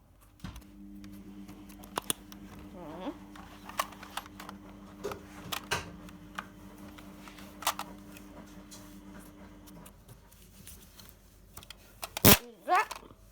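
Plastic clicks and rattles of a Nerf blaster being handled and loaded with darts, ending with one sharp, loud snap about twelve seconds in. A steady low hum runs underneath and stops about ten seconds in.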